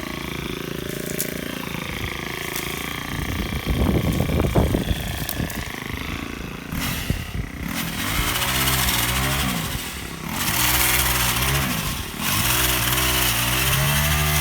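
Ryobi power head with a chainsaw attachment running and cutting dry brush branches, with a crackle of snapping wood about four seconds in. In the second half the motor revs up under load in three long pulls with short drops between them.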